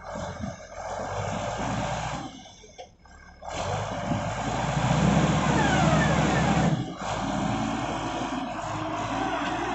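Isuzu 6BG1 six-cylinder diesel engine of a Dalian CPCD60FA forklift running, dipping in the first few seconds and then revving up louder about three and a half seconds in, with a rising whine over it.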